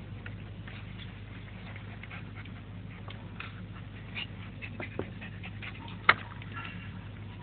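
Border collie panting while a border collie puppy scuffles and plays against it, with small rustling ticks. A sharp knock about six seconds in, then a short high squeak.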